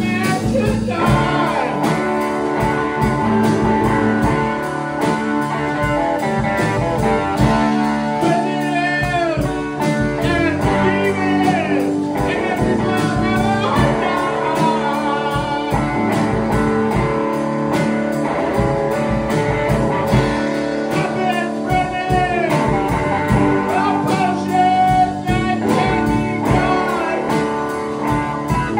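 A rock band playing live on electric guitars and keyboard, with a singer's voice coming in at intervals.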